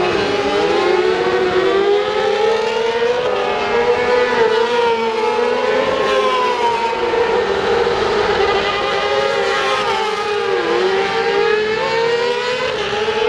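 Racing motorcycles running at high revs on the circuit, several engines overlapping, their pitches wavering up and down as they go by.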